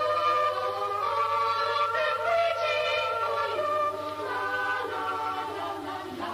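Background film music: a choir singing long, held notes without words, the chord shifting every second or so.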